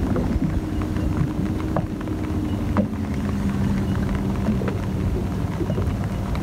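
Wind rumbling against the microphone, with scattered raindrop ticks over a steady low hum.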